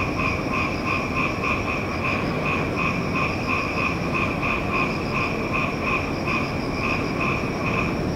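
Frogs croaking in a chorus, a rapid run of pulsed calls a few times a second over a steady low rumble. The calls die away near the end.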